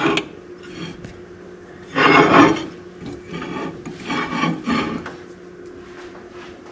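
Dishes scraping and rubbing as mugs on a plate are slid into a microwave oven. There is one loud scrape about two seconds in, then several shorter, quieter ones.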